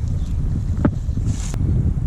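Wind buffeting the microphone, making a steady low rumble, with a short knock just under a second in and a sharp click about a second and a half in.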